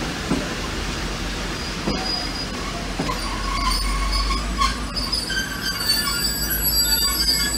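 Passenger carriages of a locomotive-hauled train rolling slowly over the tracks, with a few knocks from the wheels early on. From about three seconds in the wheels squeal at several high pitches at once, growing louder toward the end.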